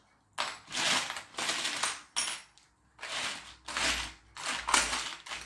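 Loose metal Meccano parts rattling and clinking as they are handled and sorted, in a series of short bursts with brief pauses between.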